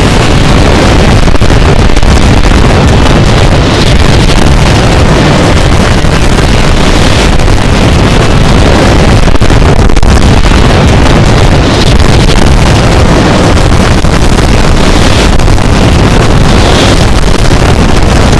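Large bonfire burning: a loud, steady rushing roar, with wind buffeting the microphone.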